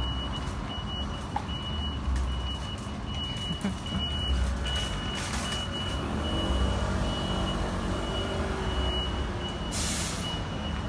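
A single-decker bus's reversing alarm beeping in a high steady tone, on and off, over the low running of diesel bus engines. From about six seconds in, a bus engine revs up, and near the end there is a short, loud hiss of air.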